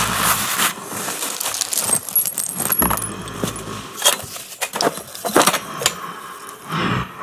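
Metal tools and small hardware clinking and rattling as a hand rummages through a cluttered workbench: a run of irregular clinks and clatters.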